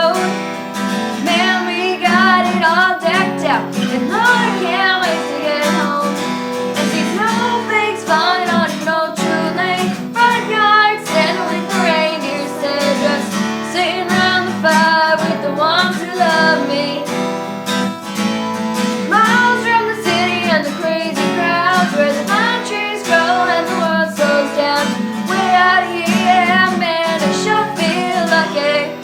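Two young girls singing a country Christmas song together, with acoustic guitar accompaniment.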